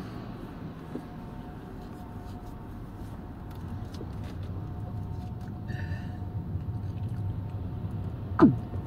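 Car cabin noise: a steady low rumble of the engine and tyres as the car moves slowly in traffic. Near the end comes a brief, louder sound that falls sharply in pitch.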